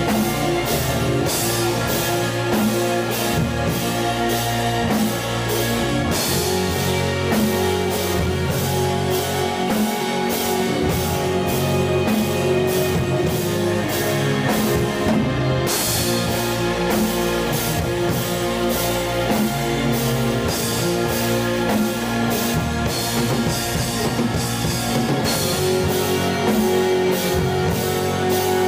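Doom metal band playing live: electric guitar and a drum kit with ringing cymbals, recorded through an iPhone microphone with poor sound quality.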